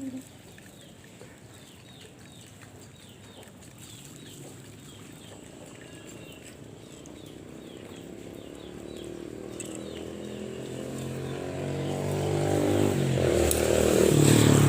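A motor vehicle approaching along the road, its engine growing steadily louder and loudest near the end. Small birds chirp in the first half.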